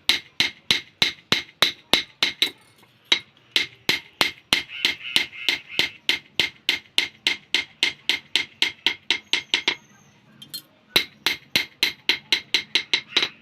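Rapid, even hammer strikes on a sickle blade under repair, about four a second, each with a sharp ringing note. The strikes stop for about a second near the end, then resume.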